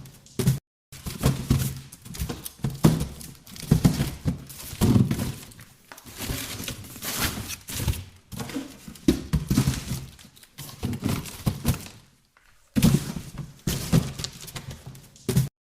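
Cardboard boxes being handled and moved about: irregular thunks as they are knocked and set down, with scraping and rustling between, stopping briefly twice.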